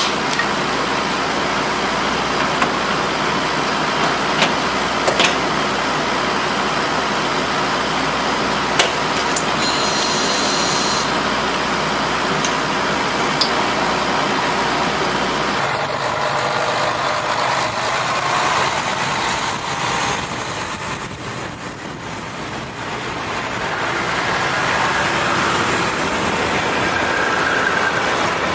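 Diesel train running, a steady engine and rolling rumble with a few sharp clicks in the first half. About sixteen seconds in, the deep rumble drops away; the sound dips briefly a few seconds later and then builds again.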